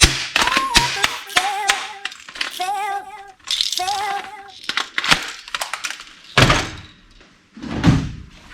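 Background music with a wavering melody, over several sharp knocks and clicks.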